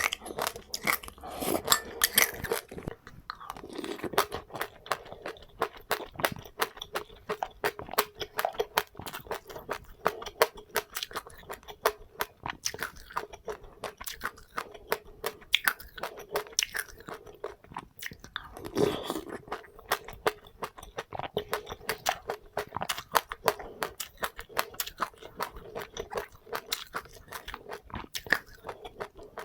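A person chewing and crunching seeds close to the microphone, with rapid, continuous small crunches, many to the second.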